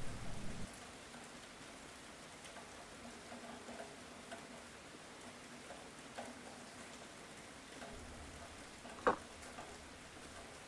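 Faint steady rain patter, with a soft low rumble starting about eight seconds in and a single sharp knock about nine seconds in.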